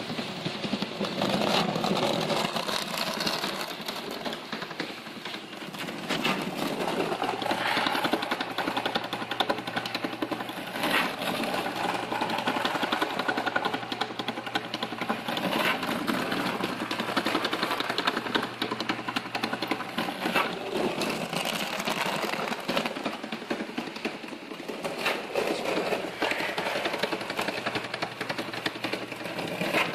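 Homebuilt sand muller running, its Maytag washing-machine motor turning the plows through a belt and gear reduction. It makes a steady, fast mechanical rattle over a constant low hum, with a few louder clacks along the way.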